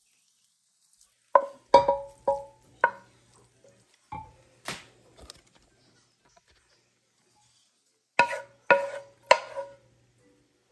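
Wooden spatula knocking and scraping against a nonstick skillet, each knock making the pan ring, as browned ground beef is pushed out into a crock pot. A quick run of four knocks comes early, a few more follow, and three come near the end.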